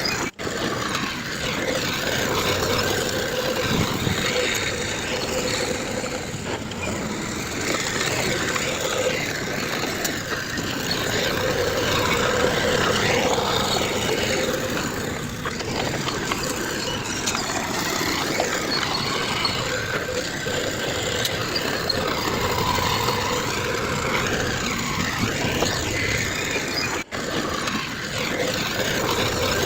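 Heavy construction machinery, bulldozer and dump truck diesel engines, running steadily at a land-fill site, with two very brief drop-outs in the sound, one near the start and one near the end.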